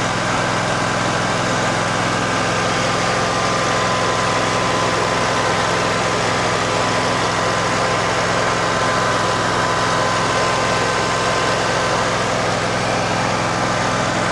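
Kohler V-twin engine running steadily, with an even engine drone and a faint steady whine riding on it.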